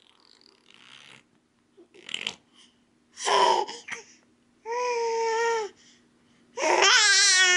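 A baby making vocal noises: short breathy sounds and babble, a held high-pitched 'aah' about halfway through, then a loud, wavering, cry-like squeal near the end.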